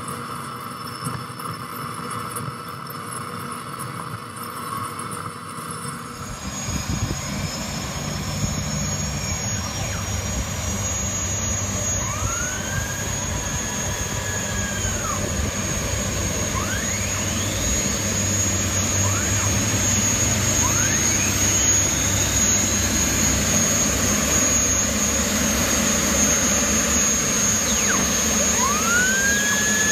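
Lycoming T53 turbine engine of a 55-foot MTI race catamaran starting up. About six seconds in, a high whine begins, rises in pitch and then holds steady while the engine grows gradually louder over a rumbling run.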